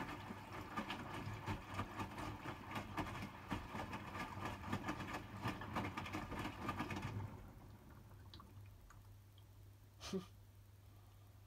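Hotpoint WMFUG 942 washing machine taking in water through its detergent drawer for a rinse, a splashing, pattering rush that cuts off about seven seconds in as the fill stops. A low steady hum is left, with a single knock near the end.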